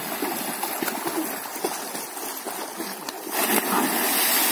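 Water splashing as several children swim and kick in a shallow stream, with heavier splashing from about three seconds in.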